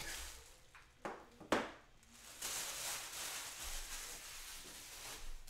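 Cards and their plastic or paper packaging being handled: two short knocks, then a steady rustle for about three seconds.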